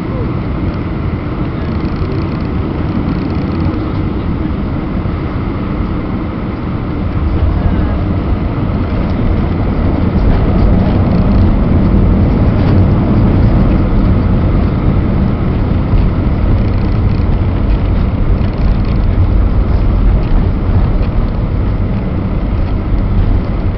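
Cabin noise of an Airbus A319 landing: a steady rush of engine and airflow, then about seven seconds in it grows louder and deeper as the airliner touches down and rolls along the runway, a heavy rumble that continues to the end.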